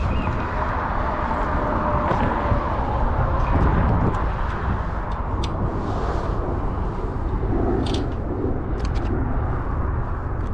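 Steady rumble of road traffic on the bridge, mixed with wind on the microphone. A few short sharp clicks come in the second half.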